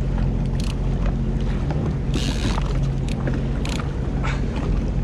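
Watercraft engine running steadily at low speed, with a few brief sharper sounds over it.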